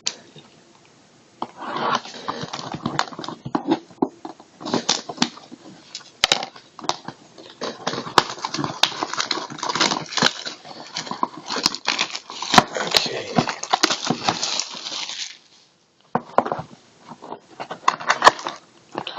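Plastic shrink wrap crinkling and tearing with cardboard rustling as a sealed box of trading cards is unwrapped and opened. The handling is busy for most of the time and pauses briefly near the end before resuming.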